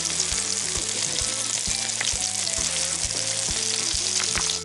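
Zucchini fritters shallow-frying in hot vegetable oil in a frying pan: a steady, dense sizzle with fine crackling.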